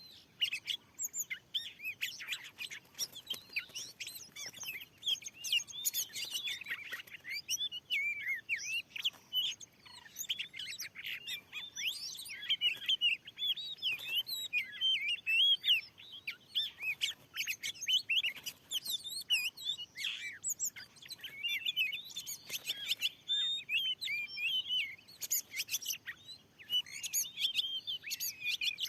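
Oriental magpie-robin (kacer) singing: a rapid, nearly unbroken run of varied whistles, chirps and trills with only short pauses.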